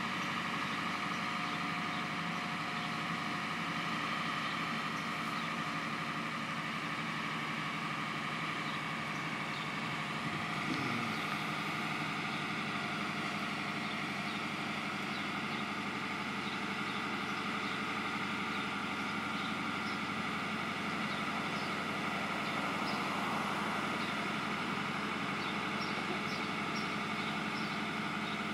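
Engine running steadily at an even speed.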